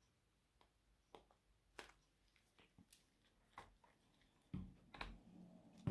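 Near silence broken by a few faint, sharp clicks, from hands and fingernails handling a rhinestone-covered bear figure, with a soft rustle near the end.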